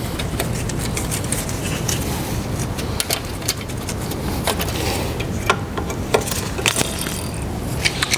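Scattered small metal clicks and scrapes of hand work at a brake caliper, freeing the pad retaining spring, over a steady low hum.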